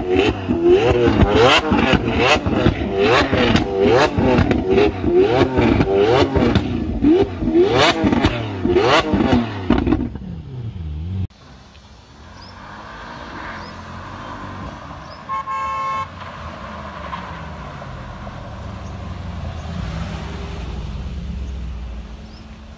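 Lamborghini Aventador's V12 revved hard again and again, about once a second, with loud exhaust cracks and pops as flames shoot from the tailpipes. After about eleven seconds this gives way to quieter street traffic, with a short horn toot a few seconds later.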